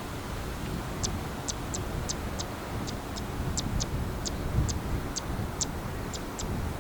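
Zitting cisticola giving its sharp 'zit' display call: short high ticks repeated about two to three times a second, beginning about a second in. Wind rumbles on the microphone underneath.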